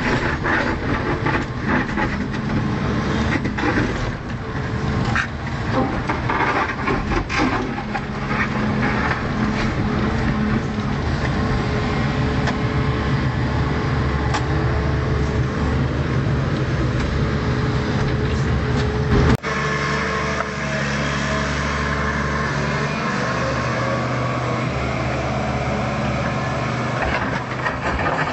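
Volvo EC210C excavator's diesel engine running steadily under working load, with a series of sharp knocks and clatter during the first eight seconds or so. About two-thirds of the way in the sound changes abruptly, and the engine then runs on more evenly.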